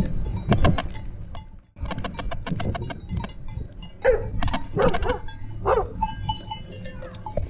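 A mixed flock of sheep and goats: clusters of clanking bells in the first few seconds, then several short bleats about four to six seconds in, over a steady low rumble.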